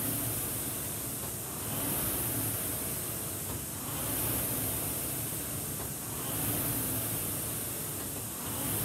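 Concept2 rowing machine's air flywheel whooshing with each drive stroke, swelling about every two seconds and easing between strokes at an easy recovery pace.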